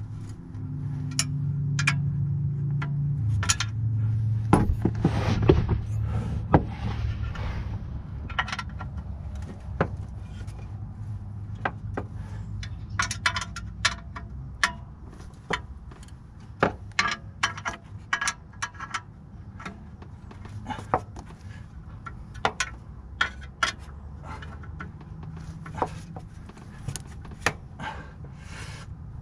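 Scattered sharp metallic clinks and knocks of hand tools and parts being handled under a car during clutch work. Some come singly and some in quick clusters. A low steady hum underneath is strongest for the first few seconds, then fades.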